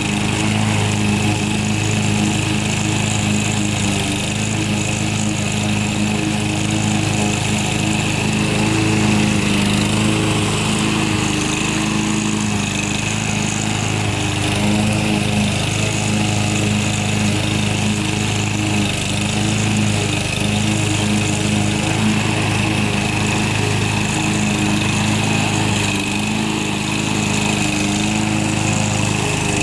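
Briggs & Stratton 550 EX 140cc push mower engine running steadily at a constant speed under load as it cuts wet grass.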